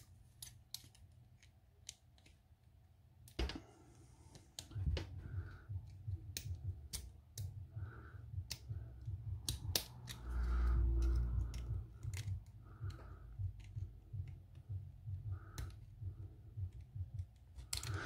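Small, sharp metal clicks and scrapes of a brass lock core and a flat steel tool being handled together, scattered irregularly, as a small retaining part is worked off the back of an American Lock 1100 padlock core. A low rumble of hands handling near the microphone is loudest about ten to twelve seconds in.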